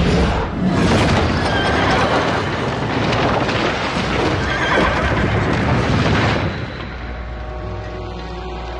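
Horses whinnying with hoofbeats amid heavy rain, loud for about the first six and a half seconds, then dropping away to quieter background music.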